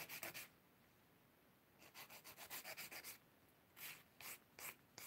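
Nail file rasping back and forth across an acrylic stiletto nail, faint and scratchy. Short strokes come in bursts: a quick run of about ten strokes in the middle, then a few slower single strokes near the end.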